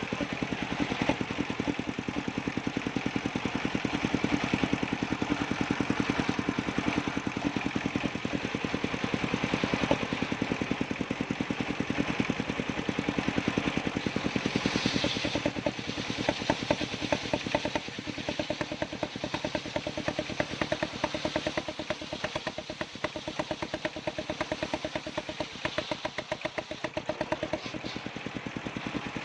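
Engine of a circular sawmill running with a steady, fast, even chugging beat. A brief higher-pitched noise rises over it about halfway through.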